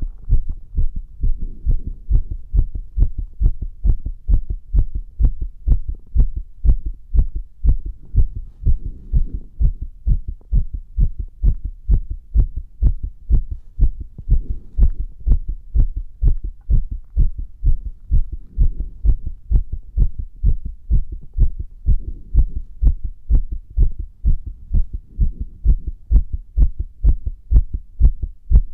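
Heartbeat heard close through the chest under pressure: an even, unbroken run of deep, low thuds.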